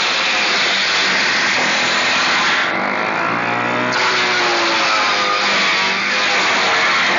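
Table saw with a dado blade shredding cardboard: the blade's steady whine over dense cutting noise, its pitch dipping and recovering as the cardboard is fed through.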